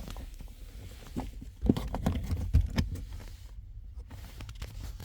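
Scattered light clicks and knocks of things being handled, the loudest about a third and halfway in, over a low steady hum.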